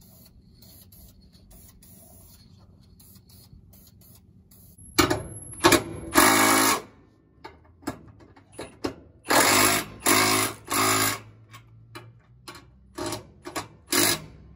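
Cordless impact wrench hammering on the lug nuts that pull a spare tire up against the trailer's cross member. It runs in about ten short bursts, none longer than about a second, starting about five seconds in.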